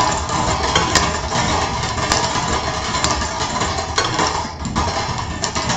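Numbered draw balls rattling and clicking against each other and their container as they are handled: a dense, steady clatter with a few sharper clicks.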